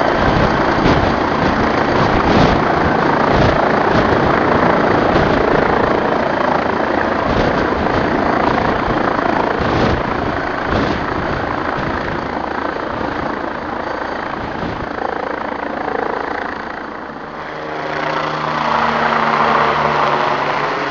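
MBB Bo-105LS twin-turbine helicopter lifting off and climbing away: rotor noise over a thin, high turbine whine. It fades slowly, then grows louder again near the end as it comes back overhead.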